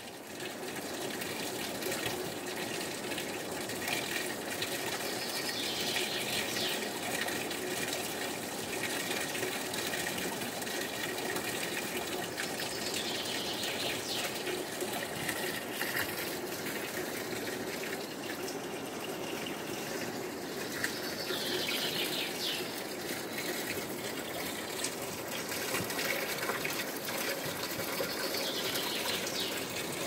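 Water pouring steadily from a stone spring spout into a basin. A songbird's short falling phrase comes in four times, about every eight seconds.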